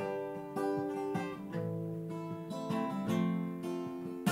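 Guitar chords strummed about once a second, each chord left to ring, heard through a T-Bone SC450 large-diaphragm USB condenser microphone with the guitar held low and away from it.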